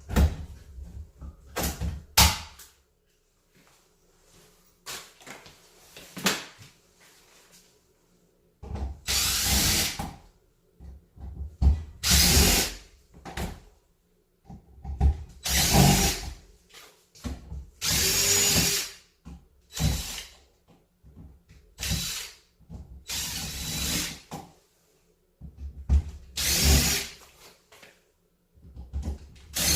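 Power drill-driver running in repeated bursts of one to two seconds each, as it drives screws into plywood panels. A few sharp knocks come in the first seconds.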